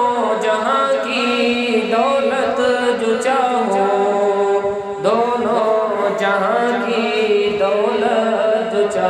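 Male voice singing a naat melody in long, sliding phrases, a new phrase beginning about five seconds in.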